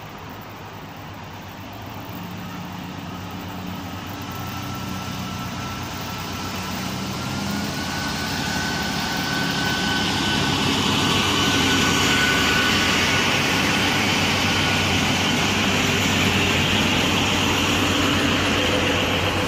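Historic diesel railcar set (class 830 coupled with class 820) approaching and passing, its diesel engines running and wheels rolling on the rails. It grows steadily louder to a peak a little past halfway, with a thin whine that rises slightly in pitch.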